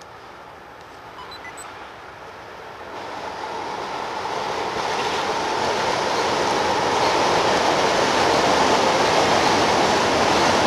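A train approaching over the steel truss bridge, its noise growing steadily louder from about three seconds in.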